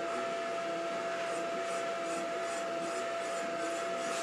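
Milling machine running with a boring and facing head turning in an aluminium crankcase bore to cut a seal groove: a steady whine with a faint repeating pulse beneath it.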